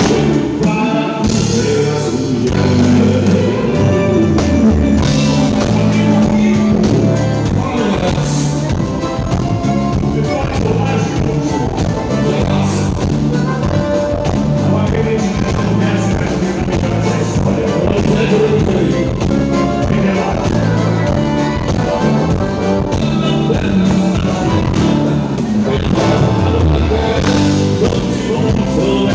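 Band music with a steady beat: guitar, bass and drums, with singing.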